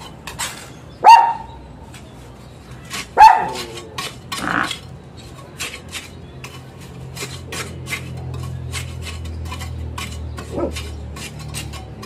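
A dog barks loudly twice, about a second apart from the start and again two seconds later, then gives a softer bark. Between the barks come small scrapes and clicks of a gloved hand working cement into the cavities of hollow concrete blocks.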